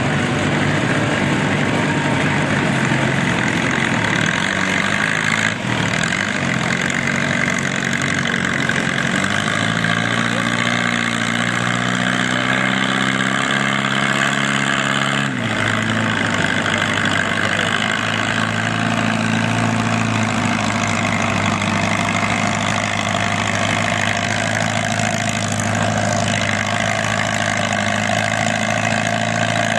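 Antique Allis-Chalmers farm tractor engine running hard under load while it drags a weight-transfer sled in a tractor pull. Its note climbs slightly, then changes abruptly about halfway through and runs steady after.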